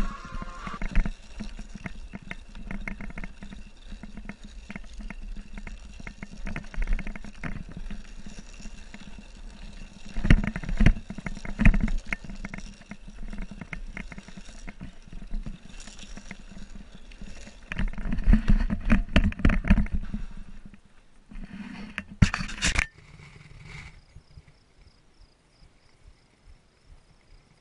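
Longboard wheels rolling fast over a loose-dirt trail, a rough rumble and rattle of knocks from the bumps, louder in two stretches. Near the end comes a short loud clatter as the board comes off and tumbles down the trail, then it goes quiet.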